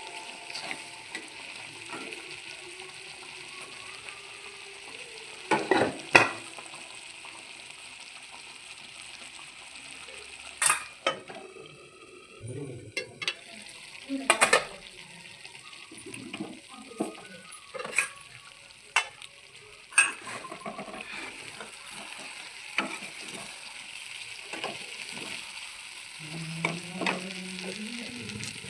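Food frying in a pan with a steady sizzle, while a spoon stirs it and knocks against the pan in sharp clicks every second or two.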